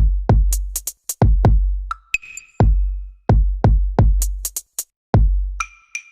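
Electronic background music: a drum-machine beat with deep bass kicks and sharp claps and hi-hats.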